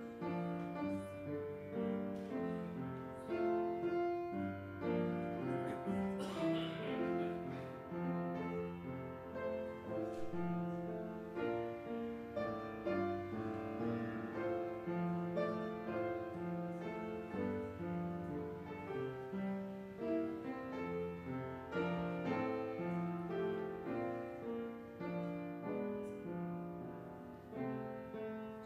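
Solo piano playing a slow, quiet piece, its chords changing about once a second.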